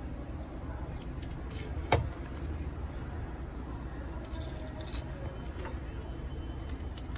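A large steel cleaver knocks once, sharply, on a wooden chopping board about two seconds in, with a fainter tap near five seconds, as a mackerel is split along its backbone. Under it runs a steady low hum.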